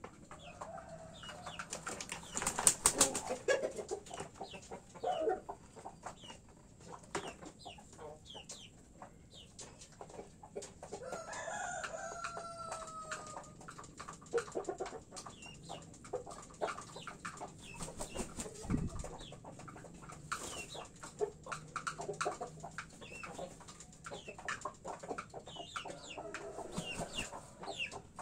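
Roosters clucking in a coop over frequent short pecking taps on feed trays and dishes. About halfway through, one rooster crows once, a call of a couple of seconds that falls in pitch at the end.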